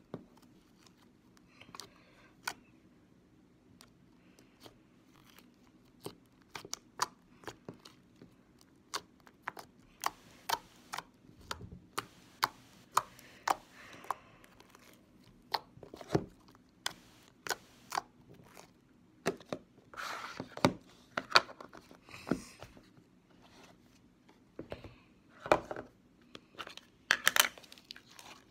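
Green slime being stretched and pressed by hand, making irregular sticky clicks, pops and short tearing noises, sparse at first and then denser and louder from about a third of the way in.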